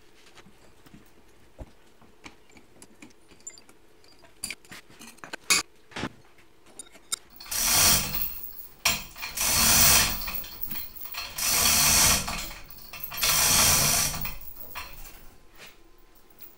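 Scattered faint clicks and knocks of a wrench working rusted leaf-spring U-bolt nuts, then, from about seven seconds in, four loud rattling bursts of about a second each from a chain hoist and its steel chains as the axle hanging from it is moved.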